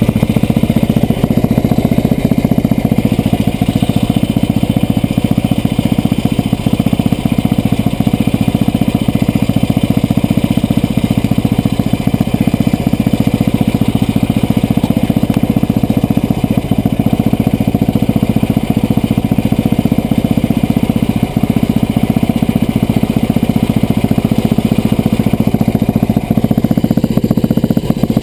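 Yamaha Rhino side-by-side's engine running steadily at an even speed.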